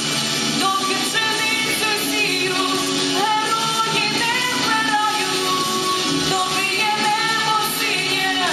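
Pop-rock backing track playing, with a young woman singing a melody over it into a handheld microphone.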